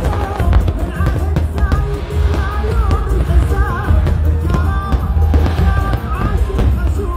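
Music with a singing melody over a heavy bass beat.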